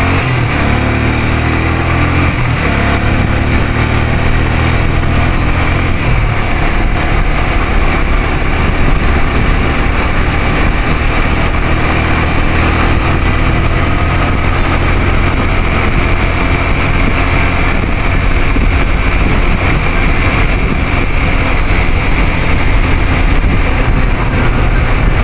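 Motorcycle engine running steadily while riding at road speed, under heavy wind rumble on the microphone.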